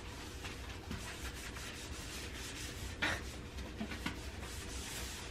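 Scrubbing at a kitchen sink: a soft, steady rubbing, with one brief louder stroke about three seconds in.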